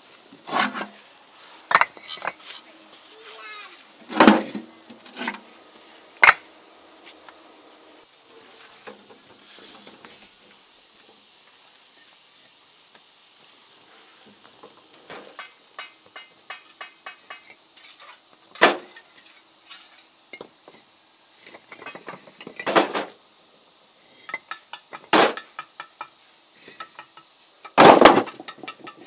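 Irregular sharp metallic clinks and knocks of hand tools at construction work, some ringing briefly, with a quick run of light ticks about halfway through.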